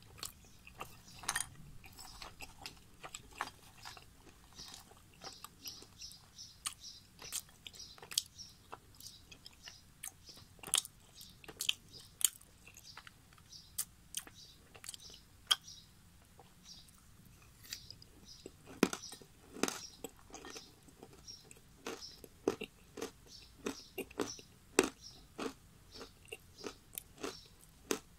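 Close-miked crunching and chewing of hard, dry chunks of edible clay: many sharp, irregular crunches, with bursts of faster bites in places.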